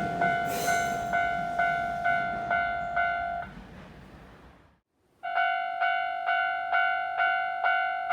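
Japanese level-crossing warning bell ringing about twice a second, while a passing train's rumble fades away. The bell stops about three and a half seconds in, and after a second of near silence it starts ringing again.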